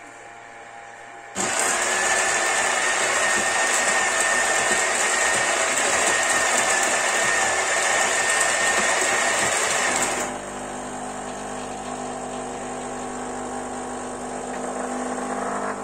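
Krups EA81 bean-to-cup espresso machine running a coffee cycle. About a second in, its built-in burr grinder starts grinding beans, a loud gritty whir with a steady high whine, for about nine seconds. It then drops to a lower, steady machine hum as it moves on to brewing, which fades near the end.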